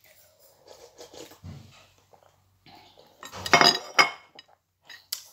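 Slurping and gulping spicy noodle broth straight from a bowl, with the loudest, fuller sound about three and a half seconds in.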